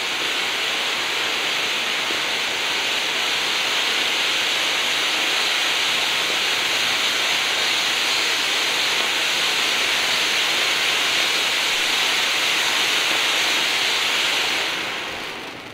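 Conic firework fountain burning with a steady, loud hiss of spraying sparks, dying away near the end.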